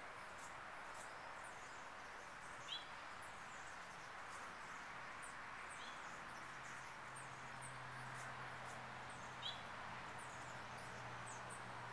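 Quiet back-yard outdoor ambience: a steady hiss with faint high chirps repeating throughout and two brief louder bird chirps, about three seconds in and near nine and a half seconds. A low steady hum joins about halfway through.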